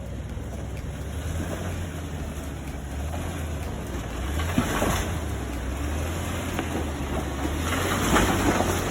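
Off-road vehicle's engine running at a low steady rumble, with wind on the microphone and two swells of rushing noise, one about halfway through and one near the end.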